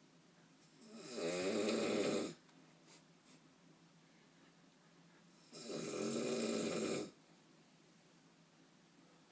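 A man snoring loudly: two long snores about four seconds apart, each lasting about a second and a half.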